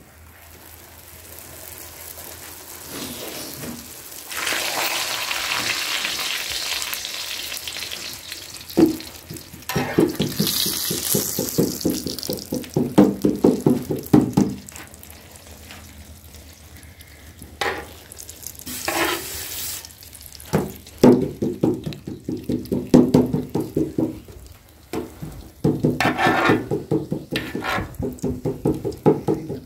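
Hot oil sizzling as a thin sheet of dough fries in a wide iron pan, with bursts of quick, regular spoon strokes basting and scraping oil over the puffing bread.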